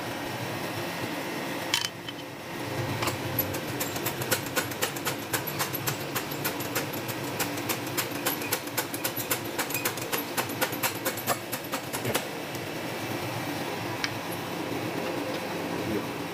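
Hydraulic shop press being worked to seat a wheel stud in a rear axle bearing flange: a quick run of light metallic clicks, about five a second, starting about three seconds in and stopping around twelve seconds, over a steady fan hum.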